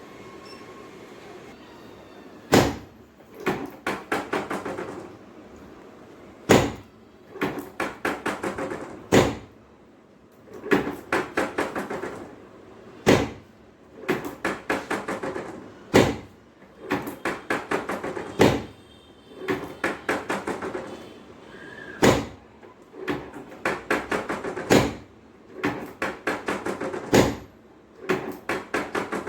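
Rhythmic percussive strikes on the body during chiropractic treatment. A sharp knock comes every two to three seconds, each followed by a quick run of lighter taps, about six a second, that fade away.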